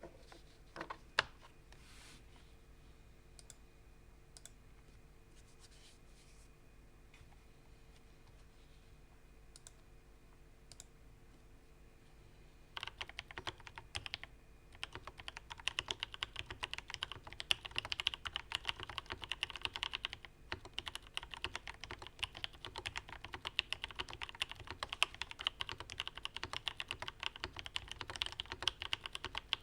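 Typing on a Ramaworks Kara custom mechanical keyboard with lubed and filmed switches: a few scattered key presses, then from about 13 seconds in, fast continuous typing with a couple of short pauses.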